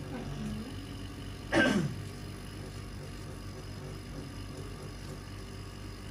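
Steady low background hum. About one and a half seconds in, one brief, loud vocal sound falls in pitch.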